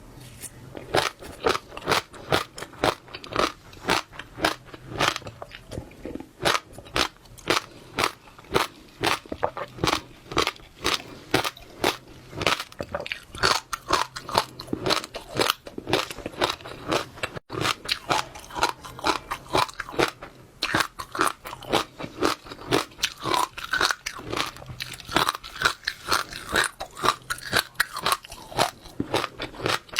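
Close-miked chewing of wet passionfruit seeds: a steady run of sharp, crisp crunches and pops, several a second, as the seeds burst between the teeth.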